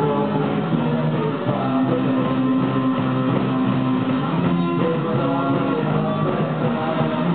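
A live rock band playing: electric guitars and bass guitar over a drum kit, continuous and steady in loudness.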